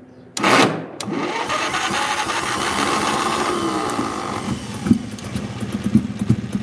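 The small gasoline pony (starting) engine of a John Deere 720 diesel tractor being started: a sudden loud burst as the starter kicks in, a few seconds of the electric starter whirring as it cranks, then the pony motor catching and putting unevenly. The engine is touchy and needs heavy choke, and the owner says it needs a tune-up.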